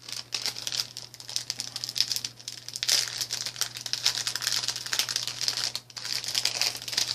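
Bags crinkling and rustling as they are handled, crackling on and off and stopping abruptly at the end.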